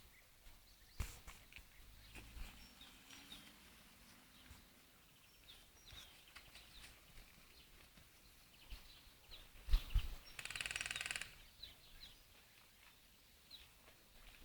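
Birds chirping now and then outdoors, with a few sharp clicks. About ten seconds in comes a short rapid rattling burst lasting under a second, the loudest sound here.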